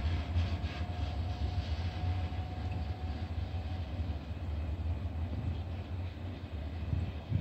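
Electric train pulling away along the line. Wheel clicks over the rail joints fade within the first second, a steady whine dies away over the next couple of seconds, and a low rumble carries on.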